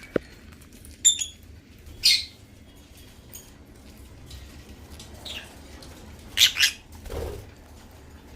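African lovebirds giving a few short, sharp chirps and squawks, including a quick double call about six and a half seconds in. A single sharp click comes right at the start.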